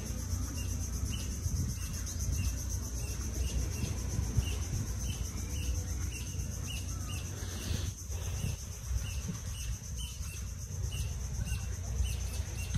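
Outdoor nature ambience: a steady, high, pulsing insect drone with short chirps repeating several times a second, over a low rumble.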